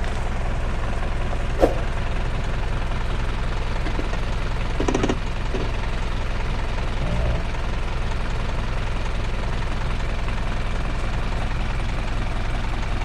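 Off-road 4x4's engine running steadily at low revs while crawling the trail, with one sharp knock about one and a half seconds in and a short noise around five seconds.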